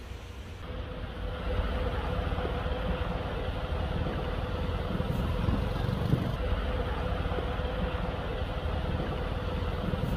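Fire truck's engine running steadily, a constant hum over a low rumble.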